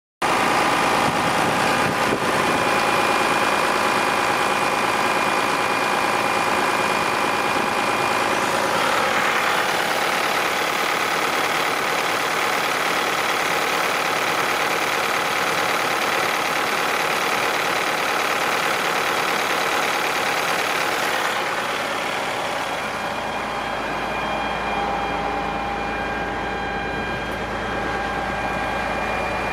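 Diesel engine of a 1995 Ford L9000 tandem-axle dump truck idling steadily, becoming duller about two-thirds of the way through.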